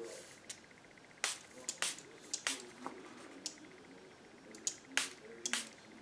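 Small fine-mist spray bottle spritzing water onto paper and cardstock in a series of short, sharp pumps, to dampen the paper a little.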